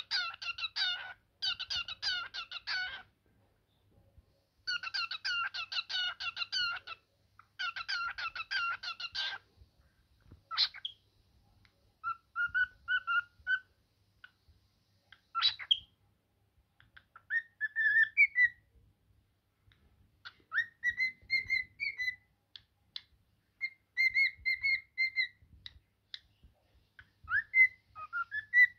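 Cockatiel singing: bursts of fast chattering warble for about the first nine seconds, then a string of separate short whistled phrases, several of them rising in pitch.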